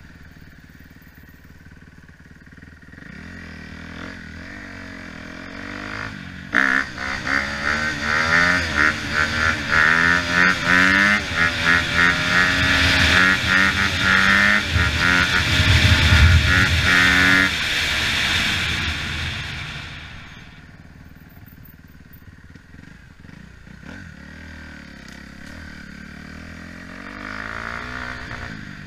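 Dirt bike engine heard from the rider's helmet: running low at first, then revved hard from about six seconds in, its pitch rising again and again as the bike accelerates through the wheelie run. It is loudest around the middle, then falls away after about eighteen seconds as the throttle is closed, and runs quietly to the end.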